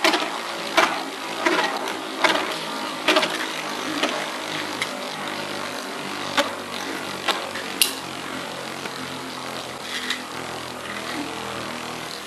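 Two metal Beyblade spinning tops, Lightning L-Drago and Meteo L-Drago, whirring steadily in a plastic stadium, with sharp clacks as they strike. The clacks come about every half second to second through the first four seconds, then only now and then.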